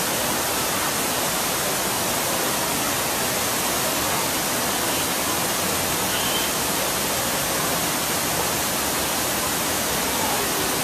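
Steady, even rush of falling water pouring into a pond, with no change in level.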